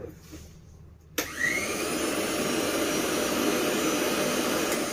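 Electric mixer grinder switched on about a second in, its motor spinning up with a brief rising whine and then running loud and steady; it starts to die away near the end.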